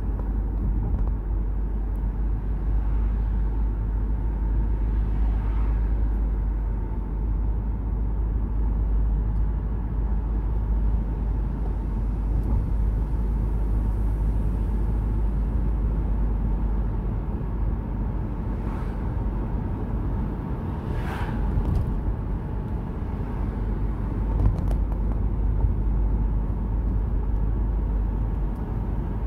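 Car cabin noise while driving: a steady low rumble of engine and tyres on the road. A few brief louder sounds rise above it from time to time.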